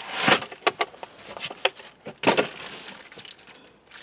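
A new cabin air filter and its packaging being handled: two loud rustling surges, one at the start and one about two seconds in, with sharp crackles and clicks in between.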